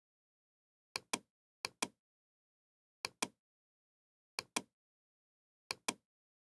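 Pairs of short, sharp clicks, five pairs in all, the two clicks of each pair about a fifth of a second apart, separated by dead silence.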